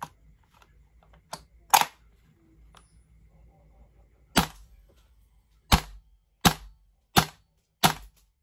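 GHK G5 gas blowback airsoft rifle firing single shots, six sharp cracks. The first two come a couple of seconds apart, then four follow at a steady pace of about one and a half shots a second. It is being test-fired after its magazines were resealed with new O-rings.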